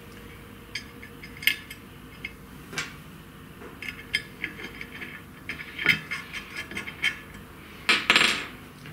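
Scattered light metallic clicks and taps as cap-head screws are set into a CNC router's Y-axis mounting plate and turned in finger tight. A brief rubbing scrape comes near the end.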